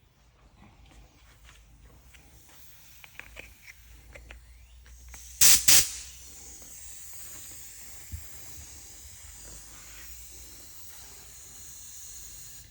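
Two short, loud blasts of compressed air from an air nozzle about five and a half seconds in, used to push the rebuilt brake caliper's pistons out, followed by a steady hiss of air escaping. Faint clicks of handling the caliper come before the blasts.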